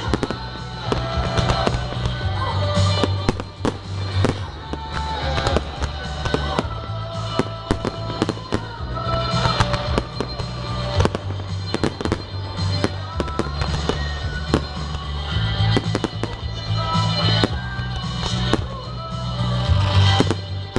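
Firework aerial shells bursting in a dense, irregular string of bangs, with music playing throughout.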